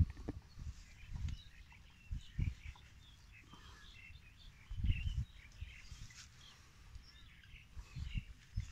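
Small birds chirping and twittering on and off, with a few short, low, muffled thumps on the microphone, the loudest at the start and about five seconds in.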